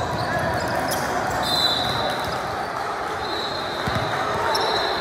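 Basketball game on a hardwood court: the ball bouncing as players dribble, sneakers squeaking on the floor in a few high squeals, and indistinct shouting voices throughout in a large gym.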